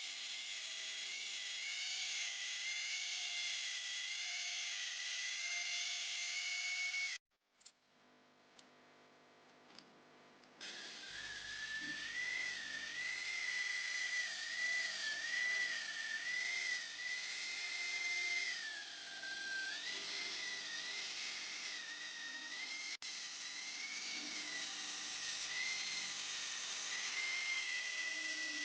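Electric grinder running against leaf-spring steel, a steady high whine with grinding hiss whose pitch wavers as the work is pressed to it. It breaks off to near silence for a few seconds, then resumes.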